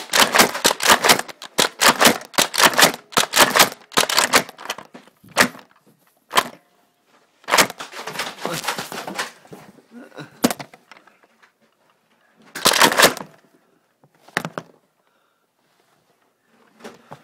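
Nerf dart blasters firing: a fast run of sharp clacking shots for the first few seconds, then single shots and short bursts a second or more apart.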